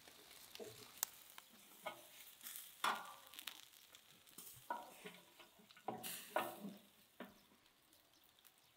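Shashlik kebabs sizzling in a wire grill basket over a smoking grill, with irregular crackles and hisses that die away about seven seconds in.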